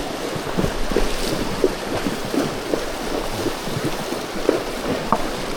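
Horses wading across a river: rushing water with irregular splashing from their legs.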